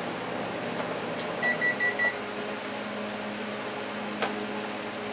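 A microwave oven beeps four times at one steady pitch about a second and a half in, its end-of-cycle signal. A steady kitchen hum runs underneath, and there is a soft click near the end.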